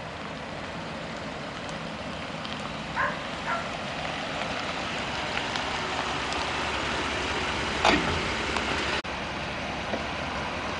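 Ford F-150 pickup truck driving up and running, a steady rush that grows slightly louder, with a few short higher-pitched sounds about three seconds in and a louder brief one near eight seconds.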